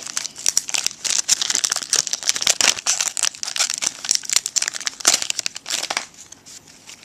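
Plastic wrapping of a trading card rack pack crinkling and crackling as it is handled, stopping about six seconds in.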